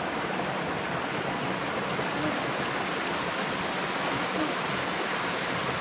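Stream water rushing steadily, an even unbroken hiss.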